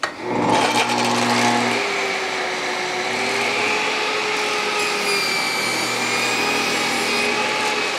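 Job site table saw ripping through a sheet of expanded PVC composite on a crosscut sled: a steady hissing cut. A faint high whine comes in about halfway through.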